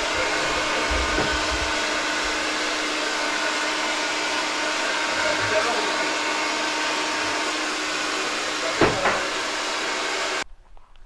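A steady mechanical whir, like a small motor or fan running, with a constant hum. There is a brief knock about nine seconds in, and the whir cuts off suddenly near the end.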